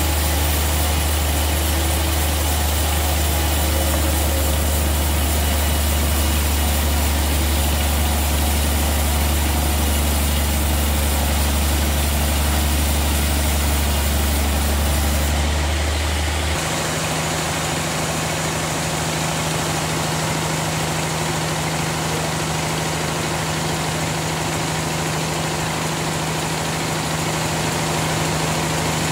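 Band sawmill machinery running steadily with a deep hum. About halfway through it changes abruptly to a slightly quieter, higher-pitched steady hum.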